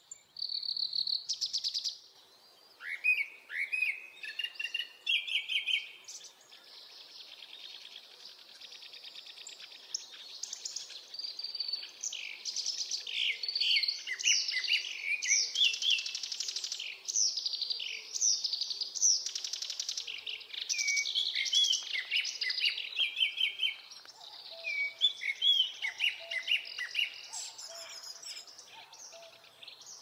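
Japanese thrush singing repeated phrases, with a black-browed reed warbler's rapid, chattering song mixed in. A fainter, low repeated note comes in near the end.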